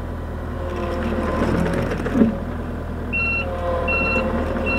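Skid steer's diesel engine running steadily, with a brief knock about two seconds in. About three seconds in, the machine's backup alarm starts beeping: short high beeps about once every 0.8 seconds, three in all, as the skid steer backs up.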